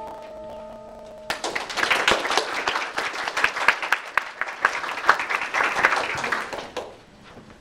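A final chord on a Steinway grand piano rings out, then an audience claps for about five seconds, the applause starting a little over a second in and fading out near the end.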